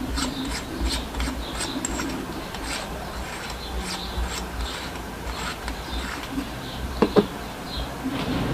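Hands unscrewing the threaded elevation and windage turret caps on a rifle scope: light scraping, rubbing and small clicks of the caps turning, with a couple of louder knocks about seven seconds in.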